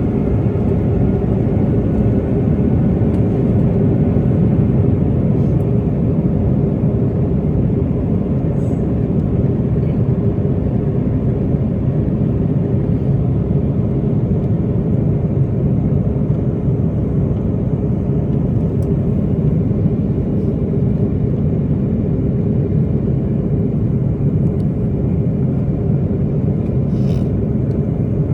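Inside the cabin of an Airbus A330-300 during descent: a steady rumble of airflow and engine drone, with a constant low hum running through it.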